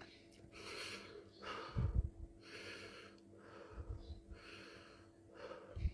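A man breathing heavily in and out, about six breaths, against the burn of Carolina Reaper chillies. Low thumps, the loudest sounds, come about two seconds in and again at the very end.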